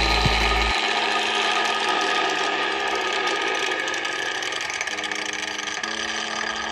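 Hand angle grinder converted into a corn mill, running with a dense rattling, grinding noise and a steady whine, slowly getting quieter. Background music comes in at about five seconds.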